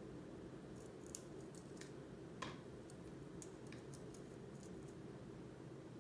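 Faint scattered clicks and taps of coloured pencils being handled, over a low steady hum, with one sharper click about two and a half seconds in.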